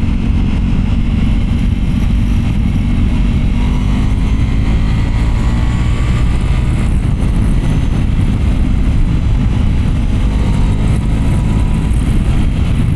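Ducati Pikes Peak motorcycle engine running steadily at a cruise of about 50 mph, under a heavy, even rush of wind noise.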